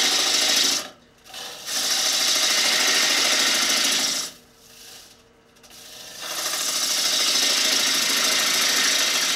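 Turning gouge cutting the outside of a wooden bowl spinning on an electric lathe: three long cutting passes, each a couple of seconds, each stopping abruptly with short quieter breaks between.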